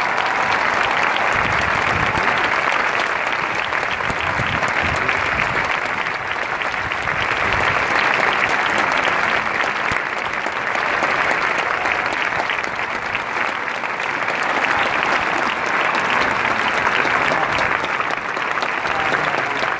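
A large crowd applauding, a dense, steady clapping that goes on without a break.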